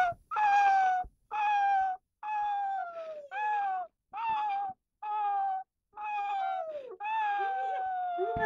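Young Rottweiler howling in a run of about eight drawn-out, high notes, each sagging slightly in pitch, with short breaks between them. The last note is longer, and a second, lower wavering howl weaves in near the end.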